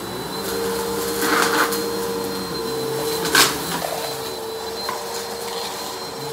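Bissell PowerForce Helix Turbo upright vacuum running steadily over a shag rug, picking up dumped debris, with a few short crackles as grit is drawn into the nozzle, about a second and a half in and again at three and a half seconds.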